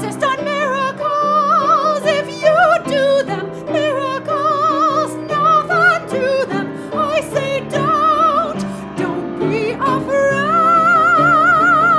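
A woman sings in a wide, theatrical vibrato over a recorded backing track, then holds one long high note from about ten and a half seconds in.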